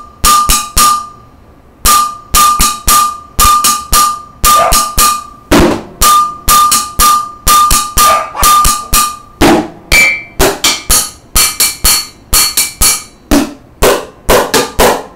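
Wooden drumsticks striking a stainless steel cooking pot, each hit ringing with a metallic tone, in a rhythm mixing single beats and quick pairs of half beats. There is a brief pause about a second in. About ten seconds in, the strikes move to other kitchen items, giving a higher metallic ring and a duller thud.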